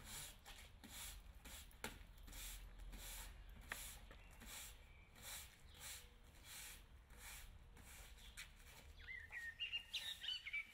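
Push broom sweeping gritty paving, faint hissing strokes about one and a half a second. Near the end high chirping, whistle-like tones come in.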